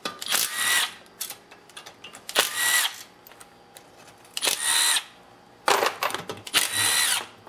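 Cordless drill/driver with a socket spinning out the 3/8 bolts of a Briggs & Stratton small-engine sump cover. It runs in several short bursts of under a second each, with pauses between bolts.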